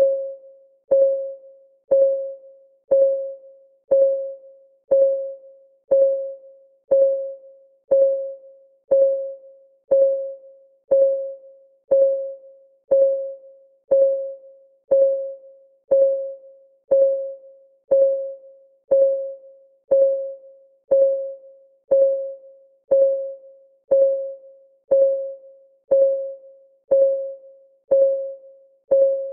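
Clock ticking steadily, once a second; each tick is a short pitched knock that dies away quickly.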